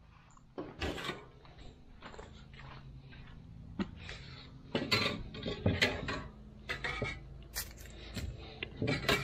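Irregular clinks, taps and scrapes of body-filler tools being handled: a plastic filler spreader and mixing gear being picked up and knocked against each other.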